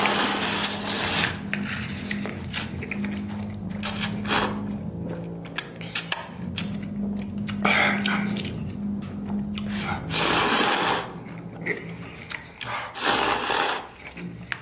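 A person slurping noodles loudly several times, in short noisy surges, the strongest about ten and thirteen seconds in. Under it, a steady power-tool hum from the neighbours' renovation runs with a short break about five seconds in and stops about ten seconds in.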